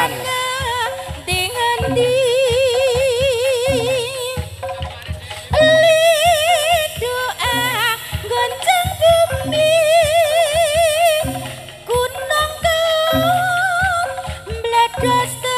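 Javanese traditional music: a singer's long, wavering vocal lines with heavy vibrato over a run of regular low drum strokes.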